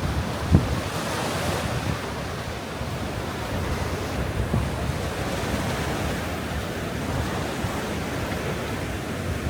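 Sea waves washing onto the beach in a steady surf, with wind buffeting the microphone in low gusts and a brief low thump about half a second in.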